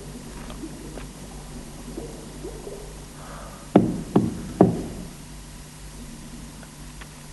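Three heavy knocks in quick succession, a little under half a second apart, each with a short ringing tail, over a steady low hum.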